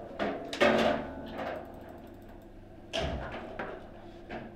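Knocks and clatter on a foosball table after a goal: two sharp knocks just after the start, then the ball rattling and rolling in the table, and another sharp knock about three seconds in.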